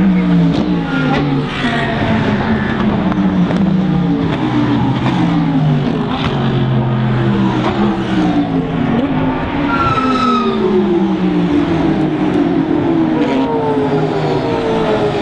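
A stream of GT race cars running through a corner, several engines overlapping, each car's engine note falling in pitch as it goes by, one after another.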